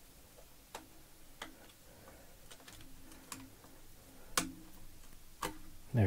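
A handful of small sharp clicks and taps, about six spread over the seconds, the two loudest near the end: a screwdriver and screws working at a laptop's plastic hard-drive bay.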